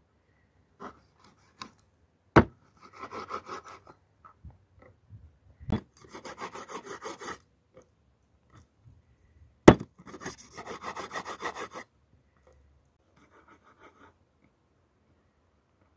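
A meat cleaver chops down hard on a wooden cutting board three times while cutting up raw chicken wings. Each chop is followed by a second or two of quick back-and-forth rasping against the board.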